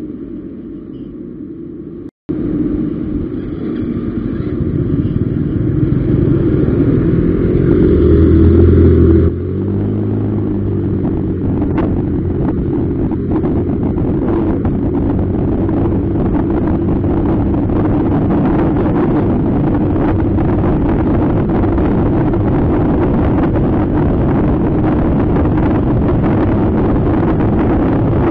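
Motor scooter engine ticking over, then pulling away and revving up for several seconds before settling into steady cruising, with a constant rush of wind and road noise. The sound cuts out for an instant about two seconds in.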